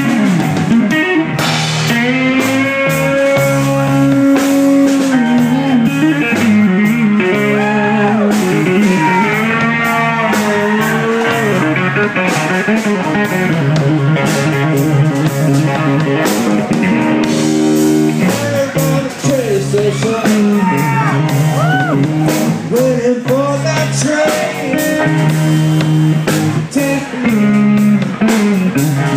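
Blues-rock electric guitar solo with many bent, sliding notes, over bass and drums.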